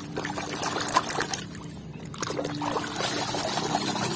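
Water splashing and sloshing in a tub as a plastic toy bus is swished through it by hand, then water streaming and dripping off the bus as it is lifted out near the end.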